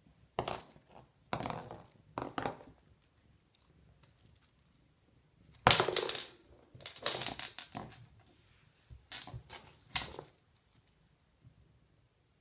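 A cat's wand toy rustling and tapping as it is flicked and dragged over a wooden floor. It comes as about seven short, scratchy bursts with quiet between them, the loudest about six seconds in.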